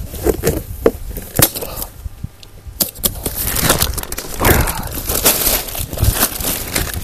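Cardboard box being opened and a packed inflatable kayak in its fabric carry bag lifted out and set down: rustling and scraping of bag and cardboard, with several sharp knocks.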